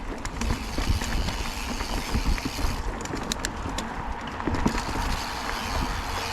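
Mountain bike rolling over a bumpy dirt trail: tyres rumbling and the bike clattering over roots and rollers, with wind buffeting the microphone.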